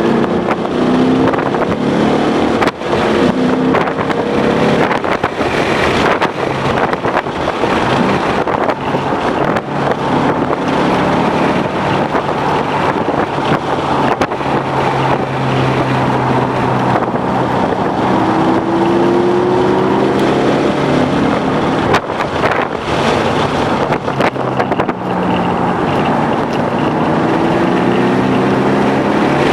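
2011 Ford Mustang GT's 5.0-litre V8 under hard driving on a race track, its engine note climbing and dropping as it accelerates and eases off, with a long pitch climb about two-thirds of the way through. Wind and road rush runs steadily underneath.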